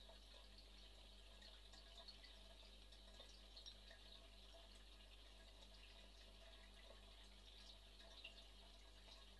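Near silence: a low steady hum with faint scattered ticks.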